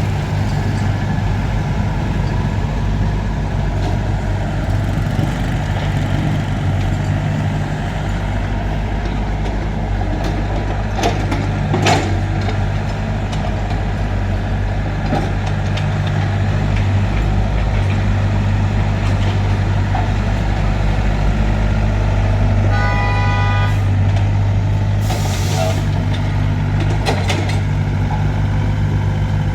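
Heavy diesel engine of earthmoving machinery running steadily, with a few sharp knocks about eleven to twelve seconds in. A short tone sounds about twenty-three seconds in, followed by a brief hiss.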